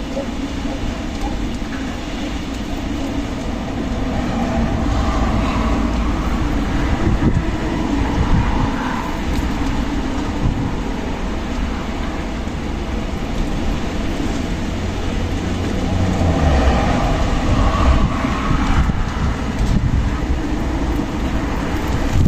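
Strong wind blowing in gusts, with a heavy low rumble of wind buffeting the microphone that swells and eases.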